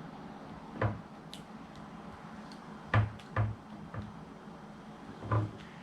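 About five short, light knocks and clicks of hard plastic parts being handled, spread irregularly: the accessory handguns being fitted to a PVC/ABS Deadpool action figure.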